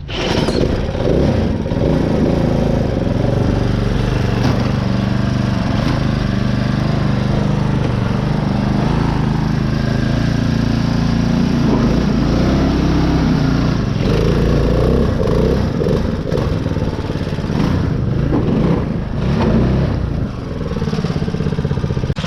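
Riding mud mower's small engine run hard at high revs under heavy load, its pitch rising and falling, as the mower struggles on a slick pond bank without getting out. Loudness dips briefly near the end.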